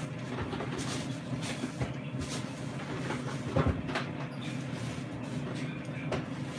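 Air fryer running with a steady hum while cooking bacon, with a few knocks and clatters, the loudest about three and a half seconds in.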